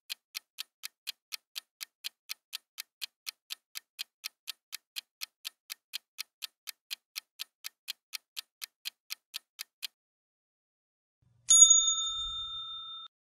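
Countdown-timer sound effect: clock-like ticks, about three a second, for the ten-second answer time. They stop, and a bright bell chime rings out and fades as the answer is revealed.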